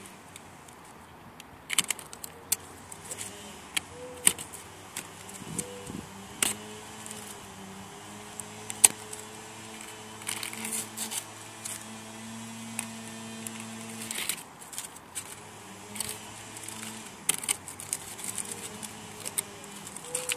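Blue painter's masking tape being peeled off a car's front bumper and grille by hand and crumpled: irregular sharp crackles and rips. A low steady hum runs underneath through about the first two-thirds.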